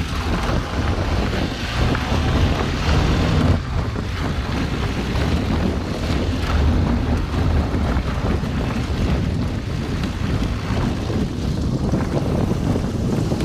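Wind buffeting the microphone over the low rumble of a vehicle driving on a rough gravel track.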